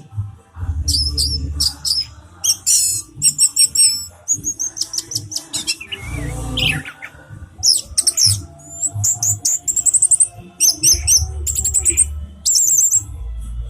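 Orange-headed thrush singing a fast, varied song of trills, quick repeated notes and sweeping whistles, phrase after phrase with short gaps. A low rumble comes and goes underneath.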